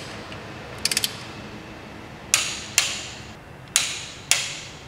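Wrench tightening cylinder head bolts on a VW/Audi 1.8L turbo engine in the first pass to 30 ft-lb. A short run of rapid ratchet clicks comes about a second in, then four single sharp metallic clicks in two pairs in the second half.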